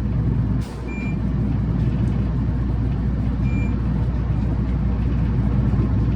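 Tokyu city bus running under way, heard from inside the cabin: a steady low engine and drivetrain rumble that dips briefly under a second in. Two short high beeps sound about two and a half seconds apart.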